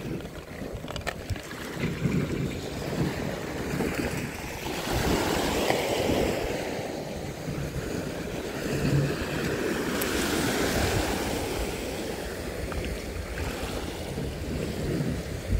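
Small waves breaking and washing up over a pebble beach, a steady surf that swells louder twice, around five and ten seconds in.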